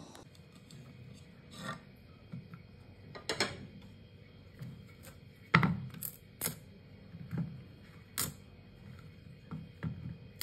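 Hands handling raw green bananas on a wooden chopping board: irregular light knocks and clicks, with one louder thump a little past halfway.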